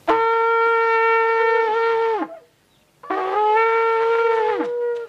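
Long spiral shofars blown in two long, steady blasts of about two seconds each, the second starting about three seconds in; each blast ends with a downward slide in pitch.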